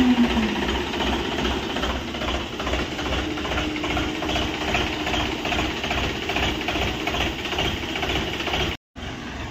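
Sonalika DI 740 III tractor's three-cylinder diesel engine idling with a steady knocking beat. The sound cuts out briefly near the end.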